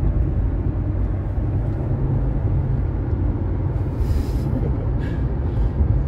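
Steady low road and engine rumble inside the cabin of a moving car, with a brief hiss about four seconds in.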